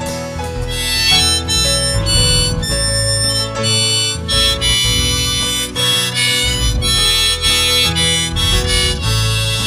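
A harmonica solo playing the song's melody over strummed acoustic guitar.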